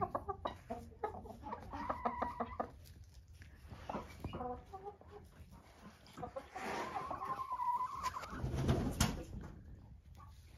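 Hens clucking: a quick run of short clucks about two seconds in, then a longer drawn-out call a few seconds later. A dull thump with a sharp click comes near the end.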